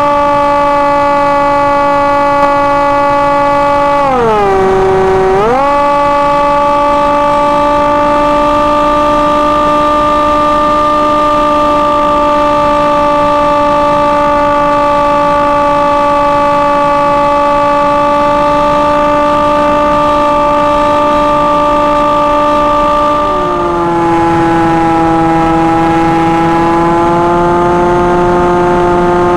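Electric motor and propeller of a Hawk Sky RC plane whining steadily, heard close from the plane itself. The pitch falls sharply about four seconds in and climbs back a second later as the motor slows and speeds up again, and it settles a little lower near the end.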